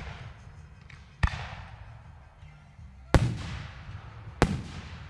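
Aerial firework shells bursting overhead: three sharp booms about a second or two apart, the middle one the loudest, each trailing off in an echo.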